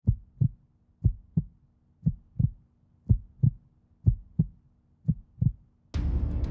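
Heartbeat sound effect: six lub-dub double thumps, about one pair a second. Near the end a louder, noisy sound cuts in suddenly.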